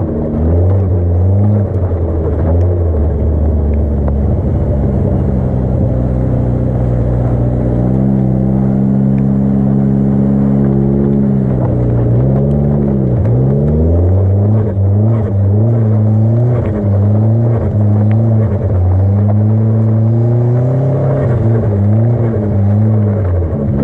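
Mitsubishi Lancer Evo X-spec turbocharged four-cylinder engine revving hard while doing donuts in snow. The revs hold steady for a few seconds, drop sharply past the middle, then rise and fall in quick succession through the second half.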